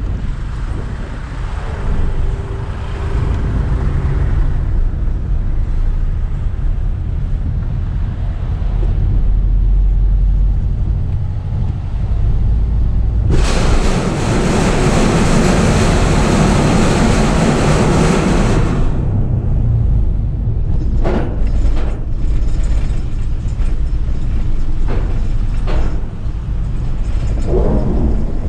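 A car's steady low rumble while it is driven aboard a car ferry. Midway a loud hissing rush lasts about five seconds, and later come several sharp clunks.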